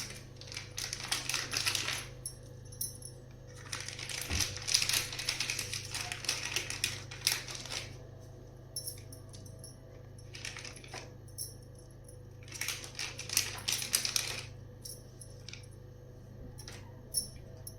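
A spoon clinking and scraping against a metal bowl in several bursts of rattly clicks, with quiet gaps between, as masala ingredients are added and worked together; a steady low hum runs underneath.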